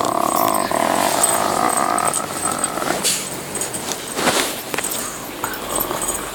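A dog making a long, drawn-out vocal noise for about three seconds as it is provoked, followed by a few short clicks and quieter, shorter noises.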